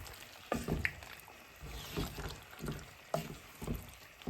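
A cooking spoon stirring chicken curry with sweet pumpkin and tomato in a pot, the wet mixture sloshing, with irregular scrapes and knocks several times.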